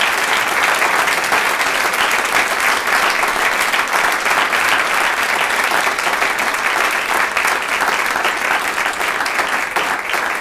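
Audience applauding: a sustained round of many people clapping, easing slightly near the end.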